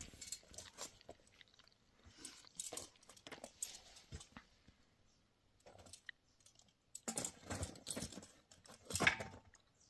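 Irregular small clicks and crunchy rustling, with a busier cluster of clicks near the end.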